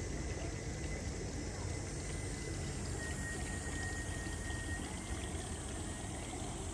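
Koi pond water running steadily, a constant even rush.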